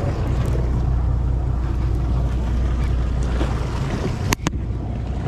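Steady low hum of a sportfishing boat's engines, with wind and water noise; two sharp clicks come about a second before the end.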